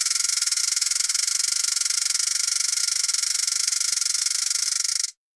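Metal surgical tray rattling rapidly and continuously, a dense high-pitched metallic chatter that cuts off abruptly about five seconds in.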